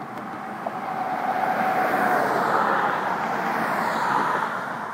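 A car driving past close by on a concrete bridge deck, its tyre and engine noise swelling to a peak about two to four seconds in and fading near the end.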